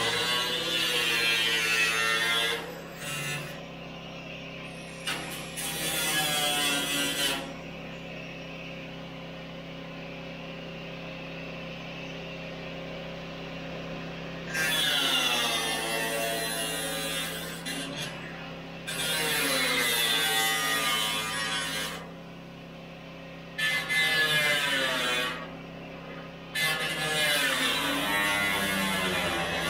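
A power tool running in about six bursts of two to three seconds each, its pitch sagging within each burst, over a steady low hum.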